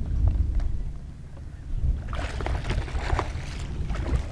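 Wind rumbling on the microphone on a kayak on open water, with a few light knocks and a stretch of splashing water from about two seconds in.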